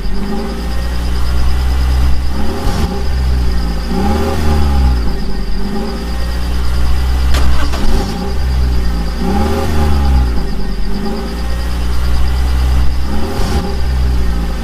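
Engine sound revving up and falling back in an identical pattern about every two and a half to three seconds, over a steady low hum and a thin high whine: a looped engine recording. A single click about halfway through.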